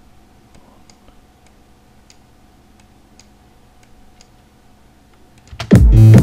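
Faint computer mouse clicks, about eight of them spaced irregularly, over a low steady hum; about five and a half seconds in, loud electronic dance music with a heavy kick drum starts playing.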